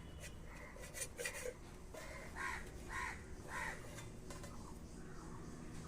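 A bird calling three times in quick succession, each short harsh call about half a second apart, after a few light knocks.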